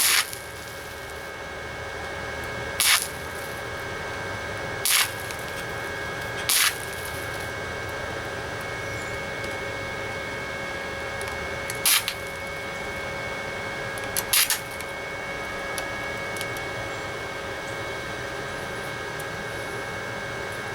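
Titanium Easy Flux 125 flux-core welder laying short tack welds on a sheet-metal patch: about six brief bursts of arc crackle, each well under a second, spaced irregularly over a steady electrical hum.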